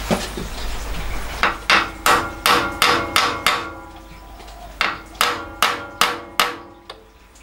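Ball-peen hammer tapping a small steel piece down into a machine vise to seat it before drilling. There is a run of about seven light taps, a short pause, then five more, each with a brief metallic ring.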